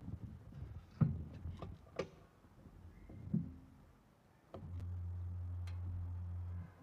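Scattered clicks and light knocks of controls being handled on a Honda CB350 Hi'ness, then a steady low hum for about two seconds past the halfway point: the fuel pump priming with the ignition switched on, just before the engine is started.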